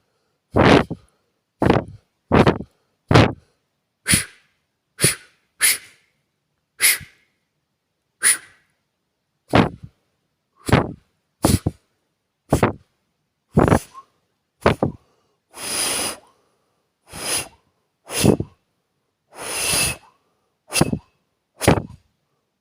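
A person blowing short puffs of air with the mouth as sound effects, about twenty in a row roughly a second apart, a few of them longer and drawn out.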